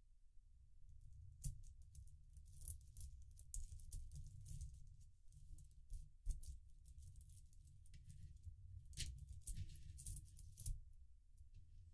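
Coins being gathered by hand from a loose pile on a towel, clinking softly against each other in scattered light chinks and clicks.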